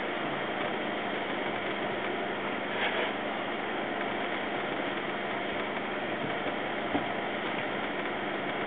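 Steady hum and rumble inside an Indian Railways AC2 sleeper carriage as the train rolls slowly along a platform, with a light knock about seven seconds in.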